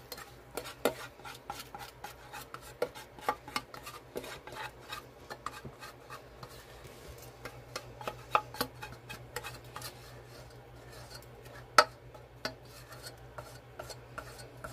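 A spatula scraping melted chocolate out of a white bowl, in irregular short scrapes and taps against the bowl's side, with one sharper knock about twelve seconds in. A faint low hum runs underneath.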